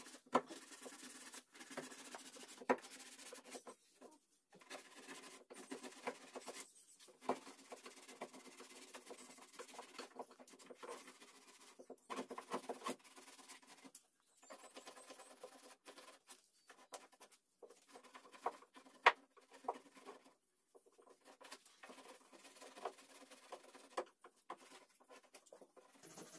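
Hand rubbing polish into a carved teak wood panel: scratchy rubbing with scattered small clicks and a few sharper knocks, coming in short stretches broken by brief silent gaps.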